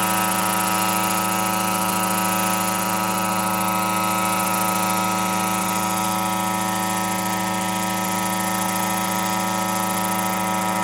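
Yamaha RMAX unmanned helicopter hovering, its two-stroke twin-cylinder engine and rotors running at a steady, unchanging pitch.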